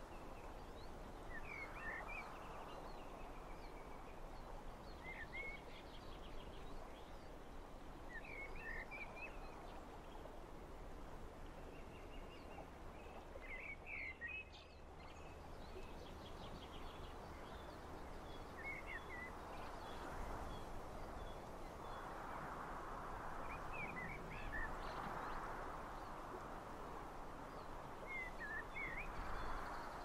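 Steady outdoor wind noise that swells for several seconds past the middle, with a bird giving a short, high chirping call about every three to five seconds.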